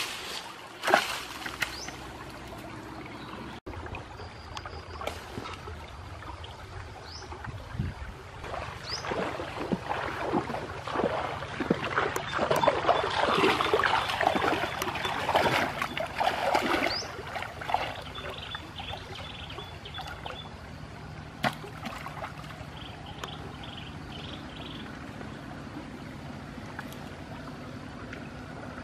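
Shallow stream water splashing and sloshing irregularly as a person wades through it, loudest in the middle, over a steady trickle of flowing water.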